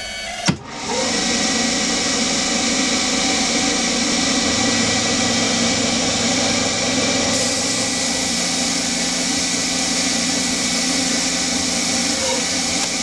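Hercus PC200 CNC lathe turning 6061 aluminium with a Noga air mister blowing compressed air onto the cut: a steady hiss of air over the running spindle and cutting. It opens with a single sharp click about half a second in, after which the steady sound starts.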